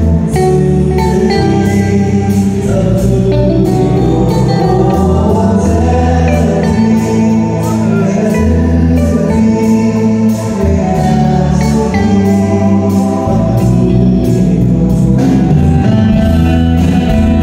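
Live band playing a song: a man singing into a microphone over electric guitar, bass guitar, keyboard and a steady drum beat, all amplified on stage.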